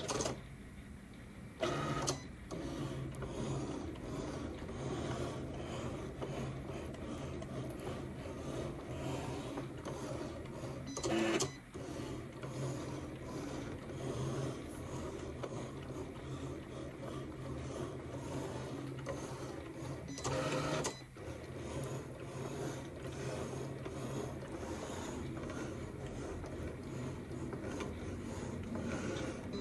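Cricut electronic cutting machine running as it cuts card stock on its mat: a steady motor whir from the carriage and rollers, with a few short louder bursts about 2, 11 and 20 seconds in.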